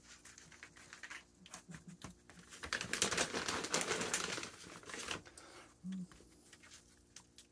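Skunk foraging on wooden deck boards strewn with seed and peanuts: a rapid run of small clicks and scratches for about two and a half seconds in the middle, then a short low hum about six seconds in.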